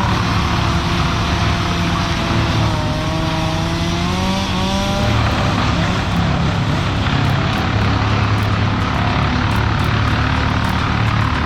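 Engine-driven tree-work machinery running steadily, its engine pitch rising and falling as it is throttled.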